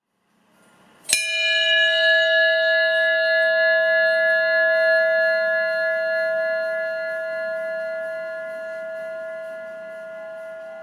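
Brass ship's bell, 18 cm across, struck once: a sharp clang followed by a long ringing tone with many overtones that slowly fades.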